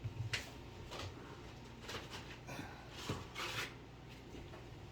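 A few short scrapes and rustles of a spoon and crunchy taco shells being handled as the shells are filled with ground meat.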